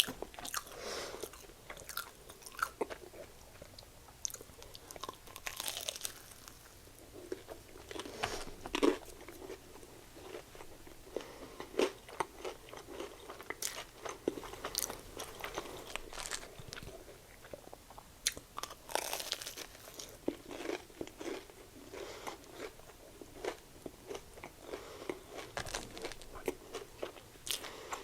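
A person biting and chewing a battered Korean corn dog, with irregular crunches and wet mouth sounds.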